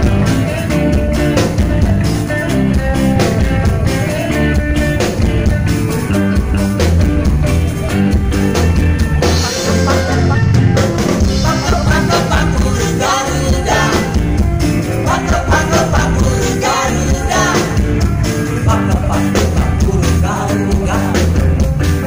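Live band playing an upbeat pop-rock song through a PA: electric guitars, bass guitar and drum kit.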